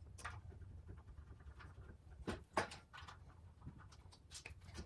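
Scattered clicks and light knocks from handling a Forespar whisker pole's aluminium tube and its plastic end fitting, with two sharper knocks close together about halfway through. A low steady hum runs underneath.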